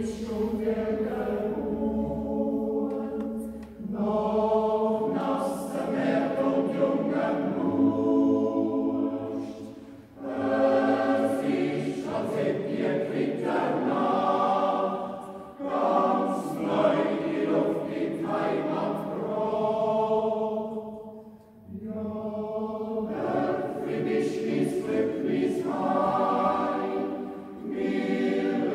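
Swiss yodel club choir singing a traditional yodel song in long, sustained phrases, with short breaks between them.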